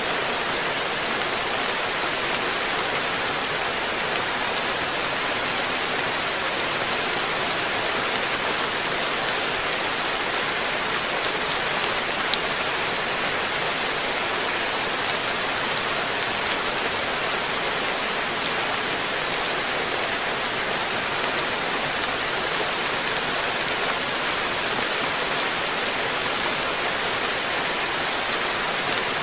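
Steady rain falling on a garden koi pond, a dense even hiss, with now and then a single drop standing out as a sharp tick.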